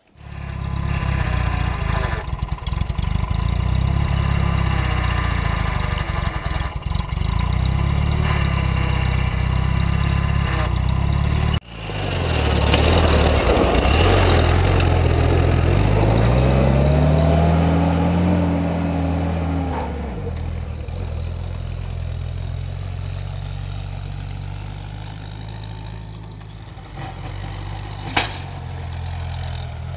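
Homemade garden tractor's engine running. About twelve seconds in its note climbs and holds higher for a few seconds, then drops back, and it runs on more quietly as the tractor moves away. A single sharp click comes near the end.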